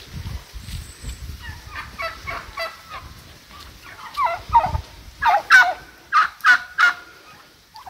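Domestic turkeys calling in a run of short, separate calls that grow louder, with five loud calls close together about five to seven seconds in.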